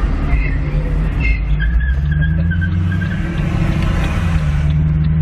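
Car engine and road noise heard from inside the cabin while driving slowly in town: a steady low hum whose pitch steps up about two seconds in, with a hiss of passing traffic swelling and fading near the end.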